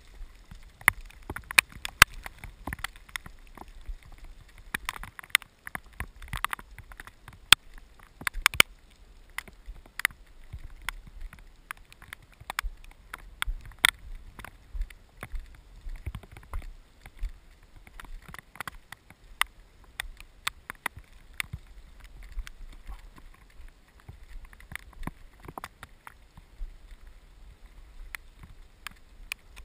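Raindrops striking the camera's waterproof housing in a storm: irregular sharp taps, several a second, over a faint low wind rumble.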